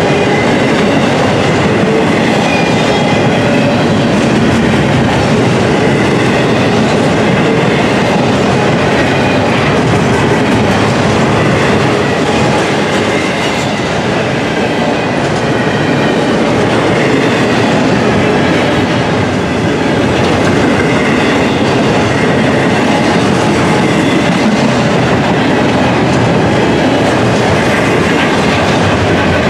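Double-stack intermodal container well cars of a freight train rolling past, steel wheels clattering over the rail joints in a steady, loud clickety-clack.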